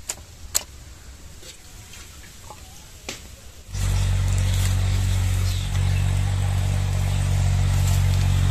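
A few light clicks and clinks of raw mutton pieces being set on a steel platter. Then, about four seconds in, a steady low engine drone starts suddenly and holds, much louder than the clicks.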